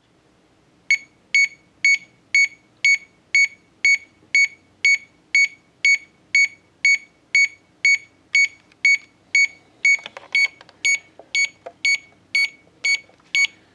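1980s KMC 500 LED alarm clock's alarm going off about a second in: a steady train of short, high-pitched electronic beeps, about two a second, not that loud.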